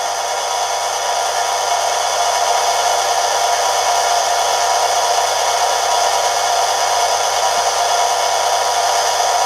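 Manson miniature lathe running with no load: its small open electric motor, with its cooling fan and belt drive up to the step pulley, whirring steadily, with a low hum underneath.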